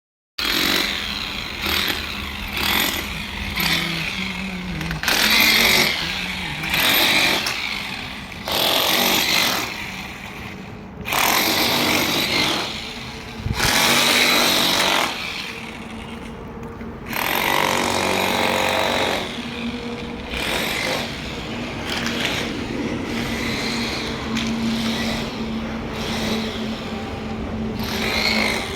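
A power tool running in repeated bursts of one to two seconds, stopping and starting, over a steady low hum.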